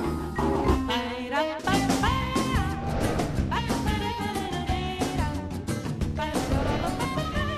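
Opening theme music of a television programme: a melody with some sliding notes over a steady beat.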